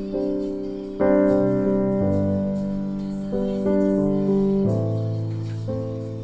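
Background piano music: slow chords struck roughly once a second, each ringing and fading.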